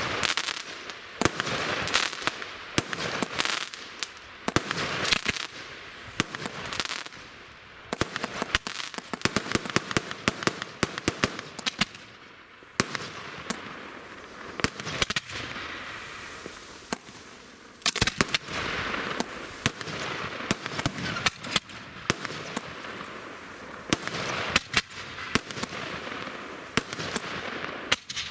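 Fireworks going off continuously: many sharp bangs in quick clusters every second or two, with crackling and hiss between them.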